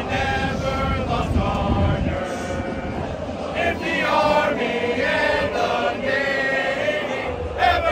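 A group of uniformed Marines singing together into microphones, mixed voices holding long notes that change pitch every half second or so.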